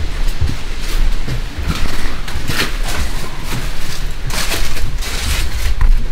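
Footsteps scuffing and crunching on gritty sandstone and rock, an irregular step every half second to a second, over a steady low rumble of wind on the microphone.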